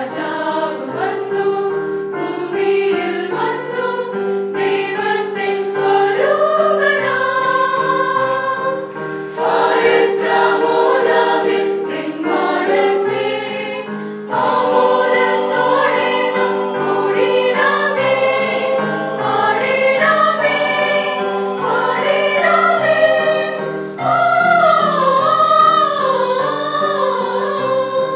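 Large mixed choir of men and women singing a Malayalam Christian carol in harmony, accompanied by a keyboard holding a steady note over a stepping bass line, with light tabla strokes.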